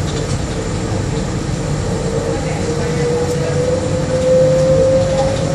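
Bombardier Innovia APM 100 rubber-tyred people mover running along its guideway, heard from inside the car: a steady low rumble with a motor whine that slowly rises in pitch as it gathers speed.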